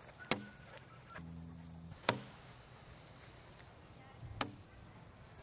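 Three sharp knocks about two seconds apart: tosses landing on a wooden cornhole board.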